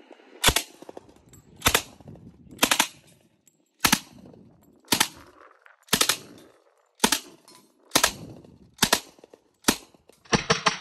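Thompson submachine gun firing .45 ACP, single shots and close pairs about once a second, then a rapid string of shots near the end.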